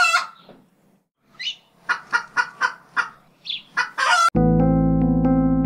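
A chicken clucking in a run of short calls, a few a second, with a brief gap early on. About four seconds in, a steady electric piano chord starts suddenly and is the loudest sound.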